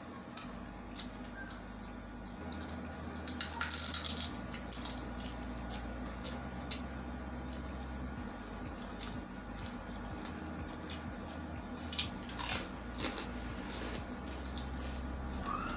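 Close-miked eating sounds: chewing a handful of rice and spicy chicken sisig, with many small wet mouth clicks and squishes and a few louder bursts about three to four seconds in and again near twelve seconds.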